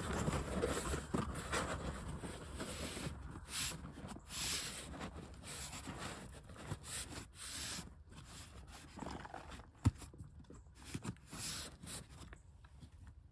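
Scattered rustling, shuffling and light knocks of hands and feet at work, with one sharper knock about ten seconds in.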